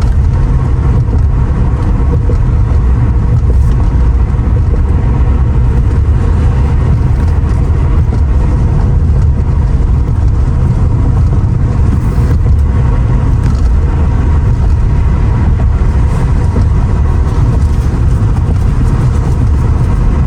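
Steady, loud rumble of road and wind noise inside a 1994 Mercedes-Benz R129 SL500 while driving, with heavy wind noise from the open side window.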